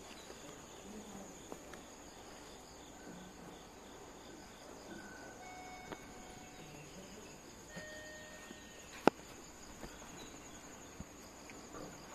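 Quiet outdoor ambience with insects chirping in a steady, high, pulsing trill, and one sharp click about nine seconds in.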